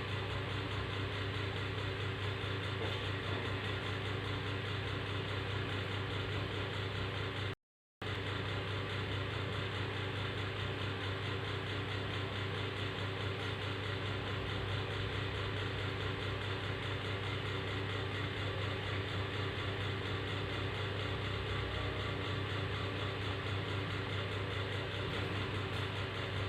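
Steady low mechanical hum, like a motor or engine running in the background, unchanging throughout. It cuts out completely for a moment about eight seconds in.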